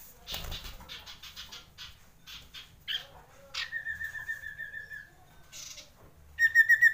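Common iora singing: a run of short notes, then a long trilled whistle held on one pitch, and near the end a louder, fast trill on one steady pitch, the iora's long roll.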